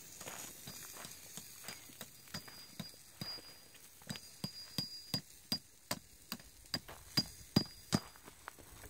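Metal tent stake being struck into stony ground: a run of sharp, ringing metallic clinks, about two to three a second, starting about two seconds in.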